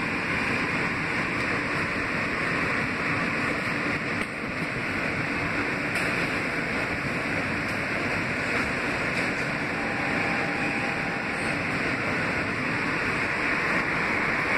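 Kawasaki R160B subway car running at speed, heard from inside the car: a steady rumble and rush of wheels on the rails that holds level throughout.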